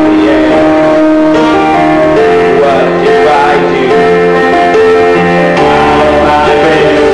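A young man singing a musical-theatre song solo through a handheld microphone, with instrumental accompaniment.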